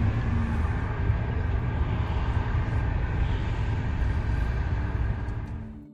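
Steady road and engine rumble of a moving vehicle, with a faint steady hum. It drops away sharply just before the end.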